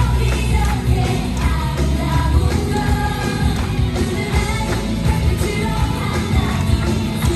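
Loud Korean pop song playing, with singing over a steady beat.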